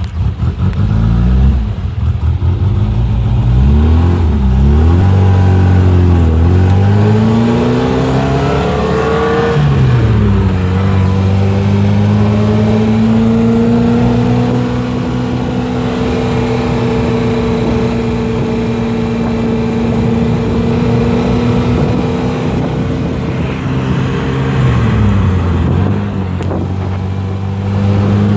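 1969 Triumph Spitfire's four-cylinder engine, heard from inside the cabin. It revs up and down for the first ten seconds, then runs at a steady, slowly rising pitch, and the revs drop a few seconds before the end. The choke is pulled out a bit.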